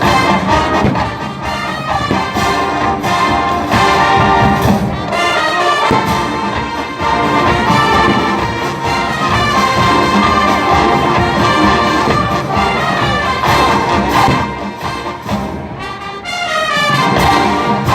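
A college marching band plays loud, brass-led music, with trumpets and trombones carrying the tune over drums. Near the end the music briefly drops back, then swells with a rising brass run.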